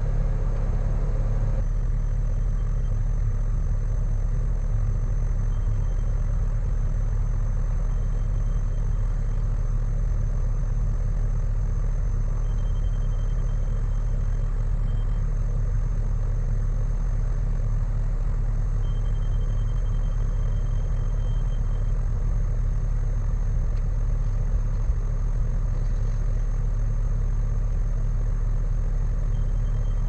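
Skid steer engine idling steadily with a low, even drone, with a faint high tone coming and going several times.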